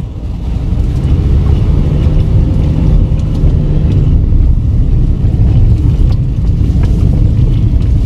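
Car engine running and tyres rolling over a rough, rutted dirt road, heard from inside the cabin as a loud steady drone, with a few faint knocks from the bumps.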